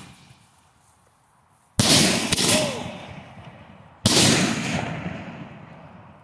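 Large aerial firework shells bursting: two loud booms about two seconds apart, the first with a smaller crack just after it, each fading in a long rumbling echo.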